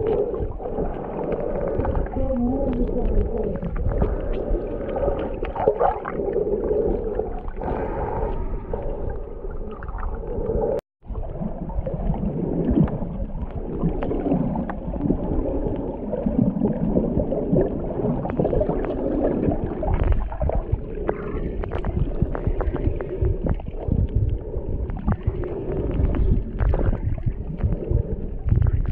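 Muffled underwater noise picked up by a camera submerged in its waterproof housing: a continuous low sloshing and gurgling with many small crackling clicks. The sound drops out for a moment about eleven seconds in.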